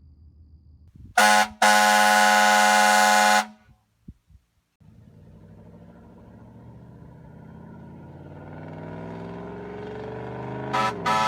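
Hornblasters Safety air horn blown with compressed air: a short blip about a second in, then one steady blast of about two seconds that stops abruptly. After a pause with a couple of clicks, a sound swells and rises in pitch for several seconds, and short, choppy horn blasts start near the end.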